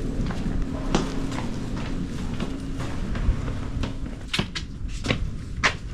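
A steady low hum with a faint held tone, then several sharp clicks and knocks in the second half, of the kind made by a door or cupboard being opened and shut.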